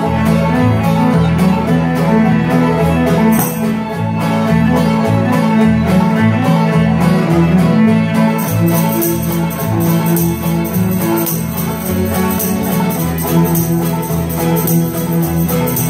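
Old-time string band playing an instrumental passage of a fiddle tune: strummed acoustic guitar, upright bass, mandolin and banjo, with a steady bass line under quick plucked notes.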